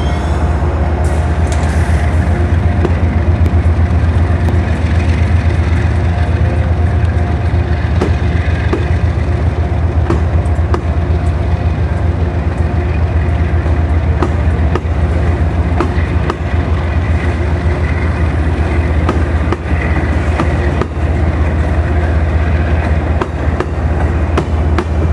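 Diesel locomotive running with a loud steady low drone, with scattered sharp clicks from the rails.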